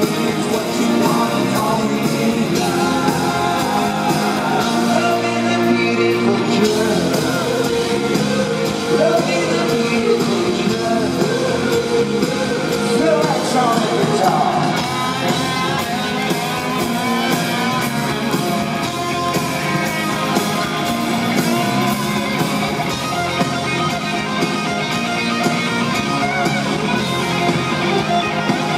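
Live rock band in an arena, recorded from the crowd: male lead vocals over electric guitars, drums and keyboards. An electric guitar comes forward in the second half.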